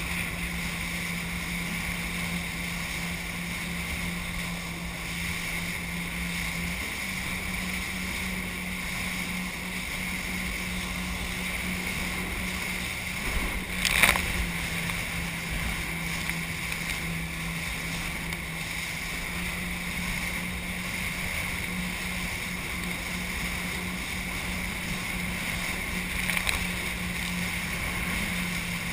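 Jet ski engine running steadily at speed, with rushing water and spray, heard from the craft's GoPro. There is a sudden loud splash about halfway through and a smaller one near the end.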